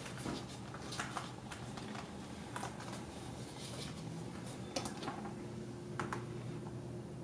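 Scattered light clicks and taps, irregular and a few a second at most, over a faint steady hum.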